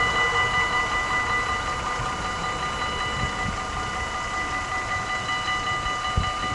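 Level-crossing warning bells ringing steadily while the barriers lift, the sign that the crossing is clearing. Underneath is the fading noise of a departing train, with a short low thump near the end.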